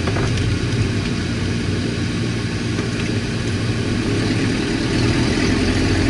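Car engine with no exhaust system running steadily while driving, a deep engine drone heard from inside the cabin.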